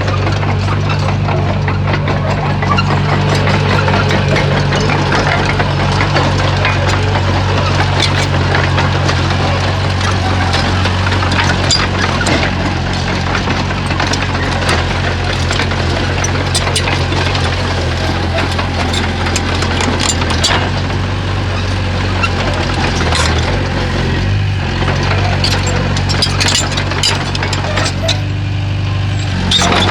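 Heavy diesel engine of earth-moving machinery running steadily, with scattered sharp clanks and knocks over it throughout.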